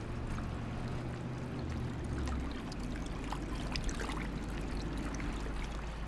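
River water lapping and trickling, with small splashes, over a steady low hum that drops lower about two and a half seconds in, likely from the small ferry's engine.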